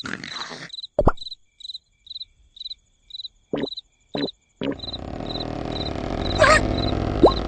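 Cricket chirping, short high chirps repeating about twice a second, with a few brief effect sounds. About two-thirds of the way in, a loud steady low noise comes in under the chirps and builds.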